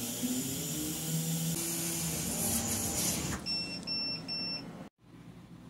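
CO2 laser cutter running, its motors whining at changing pitch over a steady hiss. About three and a half seconds in come three short, high electronic beeps. The sound cuts off abruptly just before the end, leaving faint hiss.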